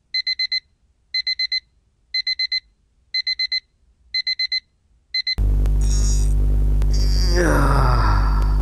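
Digital alarm clock beeping in quick bursts of four, about one burst a second, waking a sleeper. About five seconds in, the beeping is cut off by a much louder sustained sound with a deep hum and falling pitches.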